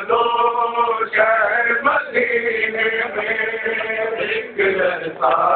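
A man's voice chanting a mourning lament (noha) in long, held notes, with short breaks between phrases.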